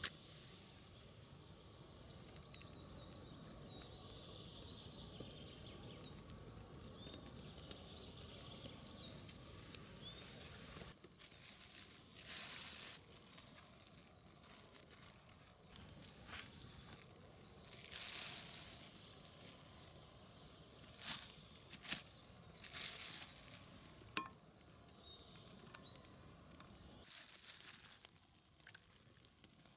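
Rustling and crinkling of plastic bags being handled, in several short bursts in the second half, over quiet forest air with faint bird chirps.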